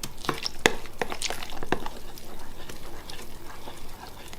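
Wet flour-and-milk batter being stirred in a bowl, with irregular sharp clicks of the utensil against the bowl.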